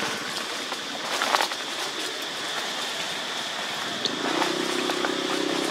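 Dry leaf litter crackling and rustling under footsteps, over a steady high-pitched drone. About four seconds in, a low steady motor hum comes in.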